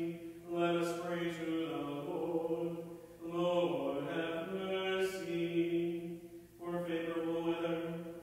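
A man chanting prayers on a single reciting tone. The pitch dips slightly at phrase ends, with short breaks between phrases about three seconds in and again past six seconds.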